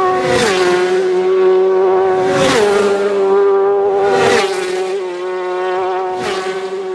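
Racing motorcycle engine sound effect: a steady engine note that drops in pitch about every two seconds, each drop with a whooshing sweep.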